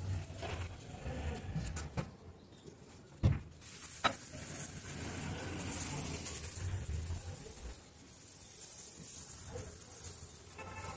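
Cleaning a refrigerator by hand: a few sharp knocks, the loudest about three seconds in, then a cloth rubbing and wiping over the surfaces with a scratchy hiss for several seconds.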